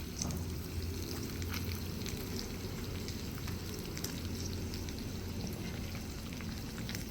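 Pork belly sizzling in hot fat, a steady fry with many small scattered crackles and pops.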